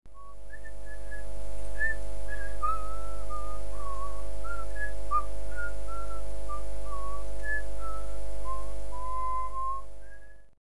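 A whistled tune, one note at a time with small slides between notes, over a steady low droning accompaniment. It fades in at the start and cuts off abruptly near the end.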